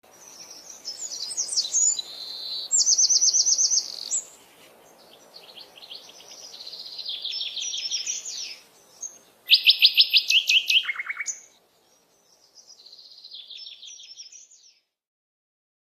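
Songbird singing: several phrases of fast, high-pitched trills and chirps separated by short pauses, stopping about a second before the end.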